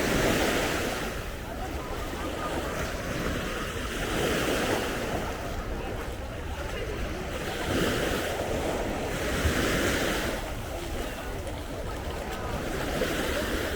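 Sea waves breaking and washing up the beach, swelling every few seconds, with wind rumbling on the microphone.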